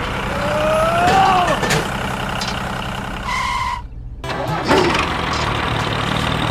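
Tractor engine running with a steady low throb, with a rising and falling squeal about a second in, a short beep a little after three seconds, and a brief drop-out near four seconds.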